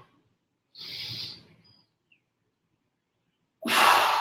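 A man's forceful breaths during ab wheel rollouts: one breath about a second in, then a louder, longer one near the end.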